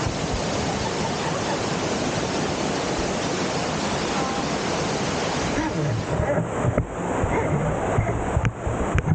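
Steady rushing roar of a waterfall's falling water. About six seconds in it thins out and gives way to uneven knocks.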